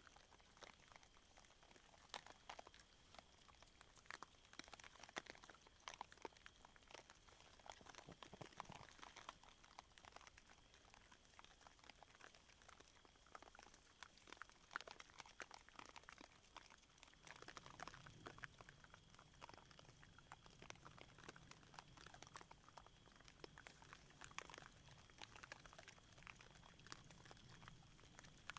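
Wild boar chewing and crunching maize kernels at a feeder: a faint, irregular run of small crunches. About 17 seconds in, a low steady hum joins it.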